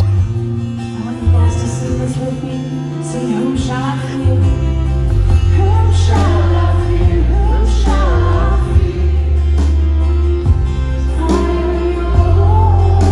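Live band music with singing: violin, acoustic guitar, electric bass and drum playing together under a heavy, steady bass line.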